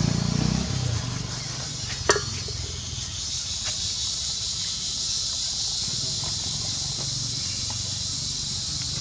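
A passing motorbike's engine fades away in the first second, leaving steady outdoor background hiss and a low hum. A single sharp click comes about two seconds in.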